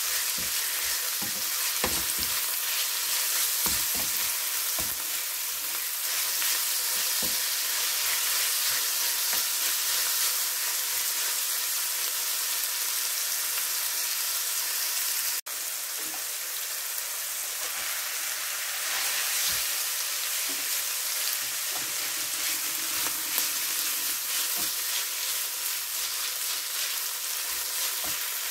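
Chicken, bok choy and onion sizzling in a hot nonstick frying pan as they are stir-fried with a wooden spatula, with occasional knocks and scrapes of the spatula against the pan, most frequent in the first several seconds. The sizzle drops out for an instant about halfway.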